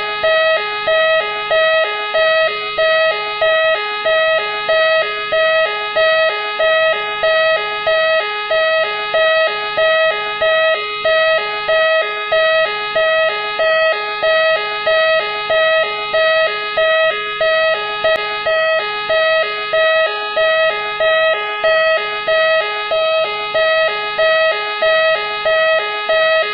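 Machine X police-car siren: an electronic siren repeating a warbling, pulsing tone in a steady rhythm, about three pulses every two seconds.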